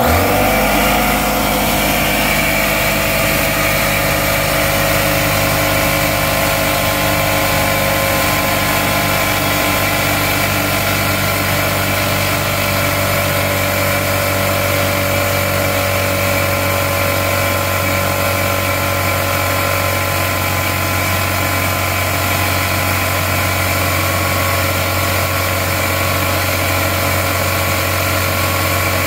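Craftsman 6-gallon pancake air compressor with an oil-free pump switched on: the motor starts abruptly and runs steadily, pumping up the tank.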